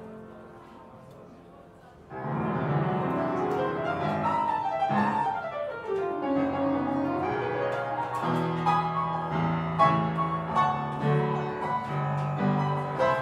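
Live small-group jazz led by piano, with double bass and light drums. Soft fading notes give way about two seconds in to the full band, the piano playing a quick run that sweeps down and back up over walking bass.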